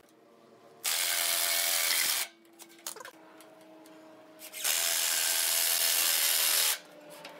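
Cordless drill running into a pine frame rail, in two runs: one of about a second and a half starting about a second in, and a longer one of about two seconds near the end. Each run is a steady whine.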